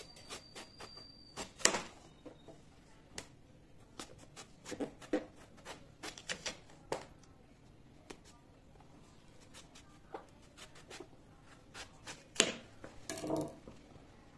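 A kitchen knife peeling the skin off an eggplant over a plastic cutting board: scattered scrapes, clicks and light knocks of the blade and the vegetable, with a few louder knocks of things being set down near the end. A faint steady high whine sounds for the first second or so.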